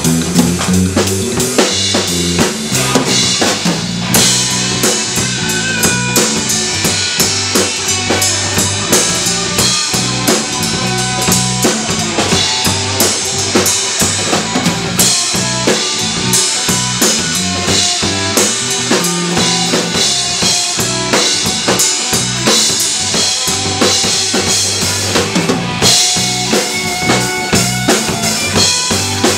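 Rock band music driven by a full drum kit, with bass drum and snare hits over sustained bass and pitched instruments, keeping a steady beat.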